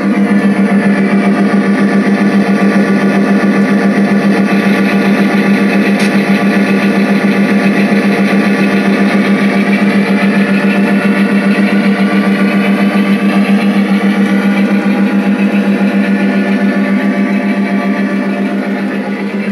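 Steady, loud buzzing drone of a passing model freight train while its boxcars and caboose roll by, dipping slightly near the end.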